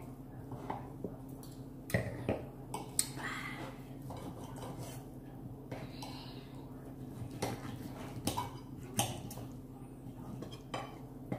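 Knives and forks clinking and scraping against dinner plates during a steak meal, in scattered irregular clicks, over a steady low hum.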